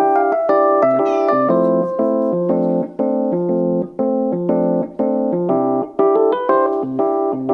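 Background music: a bright keyboard or electric piano tune with chords changing at a steady, even pace.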